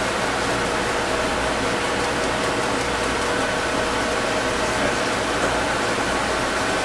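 Steady fan-like hum and hiss.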